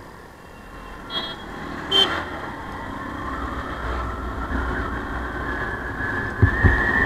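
Motorcycle pulling away from a traffic signal and gathering speed in city traffic, its engine and road noise growing steadily louder. Two brief high-pitched tones sound about one and two seconds in.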